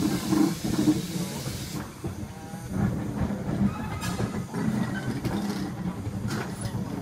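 Ivatt Class 2MT 2-6-2T steam tank locomotive moving slowly, with a hiss of steam that stops about two seconds in, followed by low, uneven puffing from the engine.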